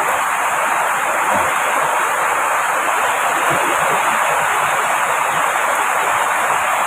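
Heavy rain falling, a steady dense hiss that does not let up.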